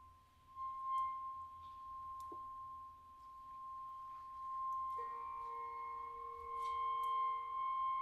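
Contemporary chamber ensemble of flute, clarinet, piano, violin and cello holding a single pure, steady high tone. About five seconds in, a lower tone and a higher tone join it and sustain, with a few faint ticks.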